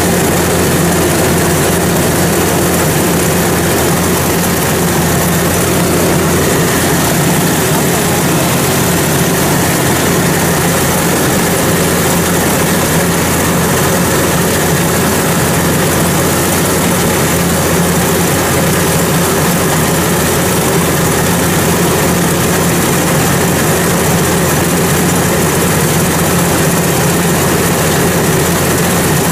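Rice combine harvester's diesel engine running steadily under load while harvesting, heard from on board, together with the header reel and cutter bar at work.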